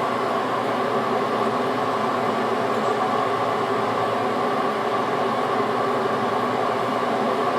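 Kitten purring steadily, a continuous drone with no break.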